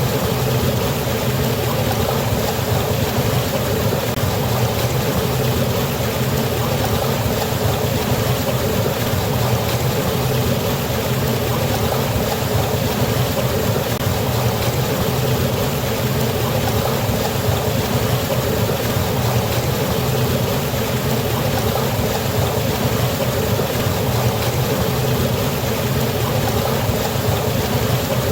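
River water rushing down a waterfall: a steady, unbroken wash of noise with a deep rumble underneath.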